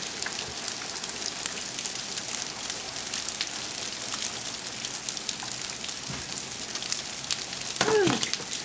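Steady rain falling, with many single drops ticking sharply throughout. Near the end a voice calls out briefly, its pitch falling.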